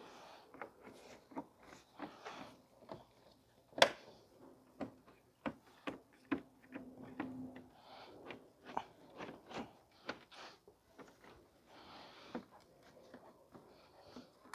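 Plastic bumper clips and fasteners being pressed and snapped back into place on a car's front bumper cover, a run of scattered clicks and knocks with one sharp snap about four seconds in.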